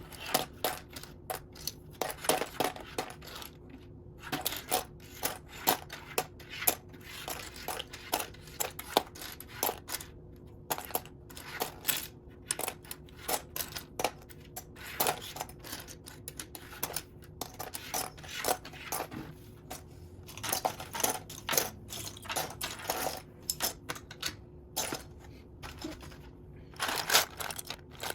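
Loose plastic Lego pieces clicking and clattering against one another as hands sift through a pile of them: many small, irregular clicks.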